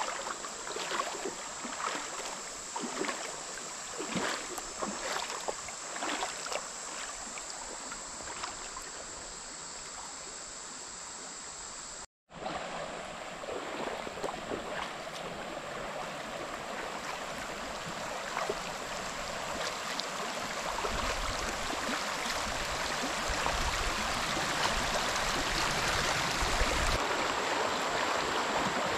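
Creek water running steadily. It is broken by a quick series of short clicks or splashes over the first several seconds, and grows gradually louder later on. The sound cuts out completely for a moment about twelve seconds in, and a low rumble of wind on the microphone comes in near the end.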